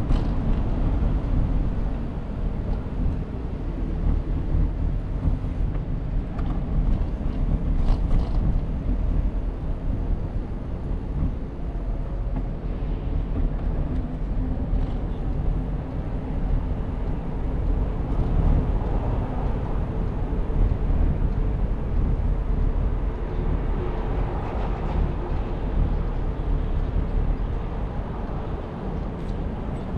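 Rumbling wind on the microphone mixed with street and traffic noise during a bike ride, steady throughout.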